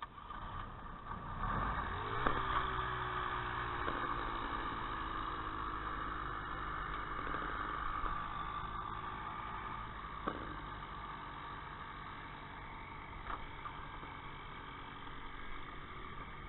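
Ultralight aircraft engine starting: it catches about two seconds in, quickly picks up speed, then settles into a steady idle.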